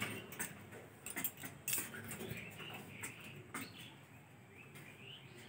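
Faint, scattered taps and clicks of a monkey's hands and feet on a metal stair railing as it climbs, with a few faint high chirps.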